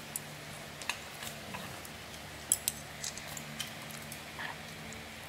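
Metal kitchen scissors snipping food over a grill pan: a handful of scattered sharp clicks and snips, with a faint steady low hum underneath.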